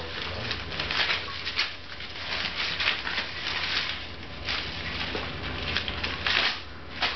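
Small dog ripping and shredding paper with its teeth while tugging it from a person's hands: irregular, noisy tearing and crumpling rips, several loud ones a second or so apart.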